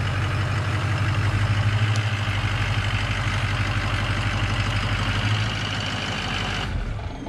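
Truck engine idling steadily, cutting off abruptly near the end.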